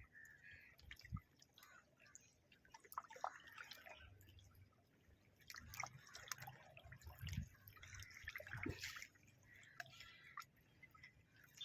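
Faint water sounds at near silence: scattered small drips and soft splashes of sea water.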